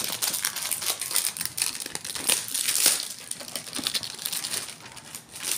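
Clear plastic wrapping crinkling in quick, irregular rustles as it is handled and pulled off a cardboard gift box of diyas.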